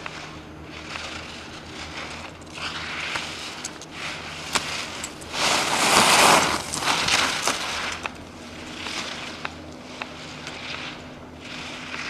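Ski edges carving and scraping across hard-packed snow in giant slalom turns, swelling loudest as the skier passes close by about six seconds in, with a few sharp clicks and a faint low hum underneath.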